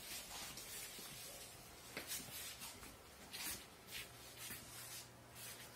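Faint rustling and shuffling of a few people moving close together, with scattered soft hissy noises and light clicks over a low steady hum.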